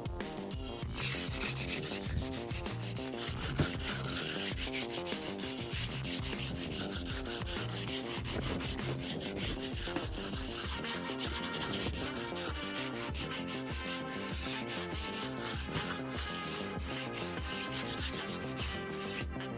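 Sanding of the garage door, a steady scratchy rubbing that starts about a second in, over background music.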